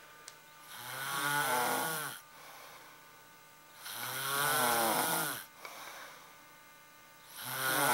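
A sleeping person snoring: three loud, drawn-out snores about three seconds apart, the last one starting near the end. Each snore carries several wavering tones at once, and quieter breathing comes between them.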